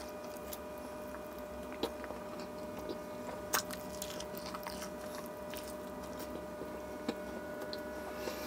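Close-miked chewing of a bite of fried fish in naan, with a few short crisp clicks from the mouth, over a steady electrical hum.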